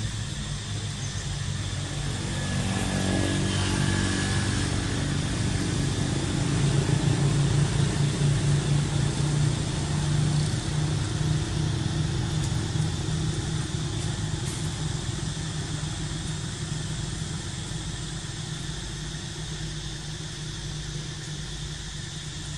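Motor vehicle engine running in the background with a steady low hum, growing louder over the first several seconds and then slowly fading away, as a vehicle passes.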